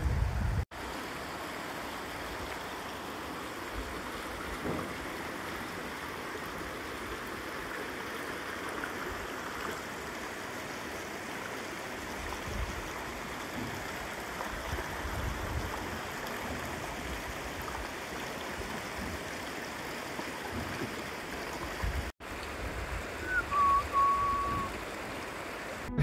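Shallow stream rushing and trickling steadily over stones. Irregular low bumps run beneath it and are loudest near the end, and the sound drops out briefly twice.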